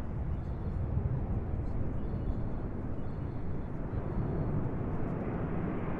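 Steady low rumble of a Mikoyan MiG-31K interceptor's twin turbofan jet engines during a flyover, a wash of noise without a clear pitch.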